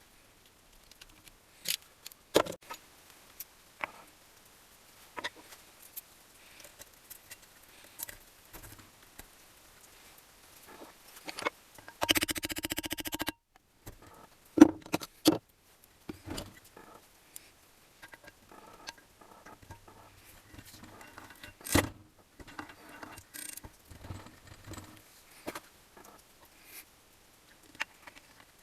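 Scattered clicks, clinks and knocks of metal engine parts and hand tools being handled during assembly of a motorcycle engine, with a dense rattling run lasting just over a second about twelve seconds in.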